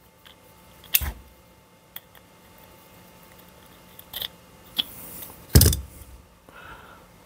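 Small metal clicks and knocks as a carburettor's float pivot pin is worked out by hand on a workbench. A few sharp clicks, the loudest about five and a half seconds in.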